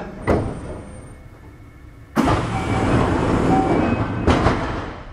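Kintetsu 6620 series train at a station stop: a sharp clunk, then a sudden loud rush of noise lasting about three seconds, with another knock near its end.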